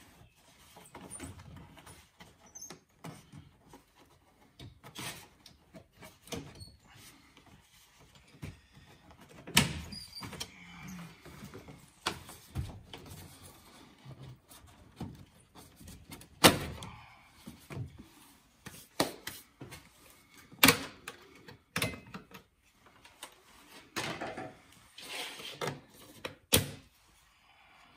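Engine covers and air intake ducts being unclipped and handled in a car's engine bay: scattered clicks and knocks, with a few louder knocks spread through.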